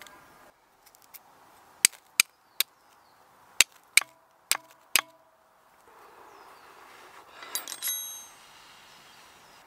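Flint and steel: a C-shaped steel striker struck against flint about seven times in quick succession, each strike a sharp click, some with a short metallic ring, throwing sparks onto a cramp ball until it catches an ember. A brief metallic jingle about eight seconds in.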